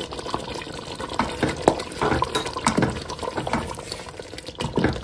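Wooden spoon stirring yogurt into thick curry gravy in a stainless steel pot: wet sloshing, with irregular knocks of the spoon against the pot.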